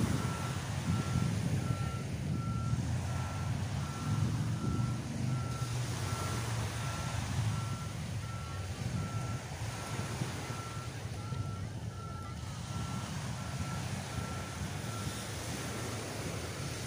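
A vehicle's reversing alarm beeping steadily at one pitch, about two beeps a second, over the low rush of surf and wind on the microphone.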